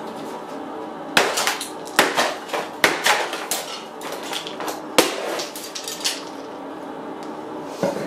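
Plastic vacuum cleaner housing being bashed open on a concrete floor: three sharp blows less than a second apart starting about a second in, a fourth about five seconds in, with smaller knocks between.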